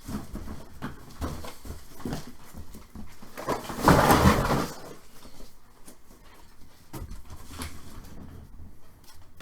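Trading-card box and its wrapping being handled and torn open: scattered small crinkles and clicks, with one loud tearing rustle about four seconds in that lasts about a second.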